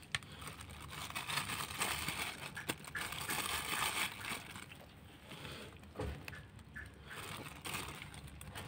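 Several kittens and cats eating, chewing and licking food off newspaper, with soft crinkling of the paper and many small clicks.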